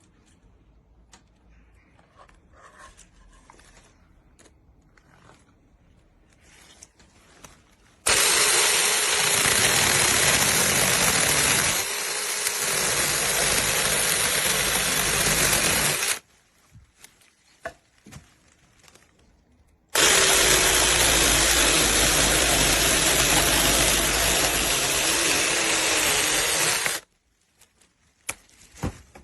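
Cordless 6-inch brushless mini chainsaw running in two long bursts of about eight and seven seconds, cutting wood, after a stretch of faint handling clicks.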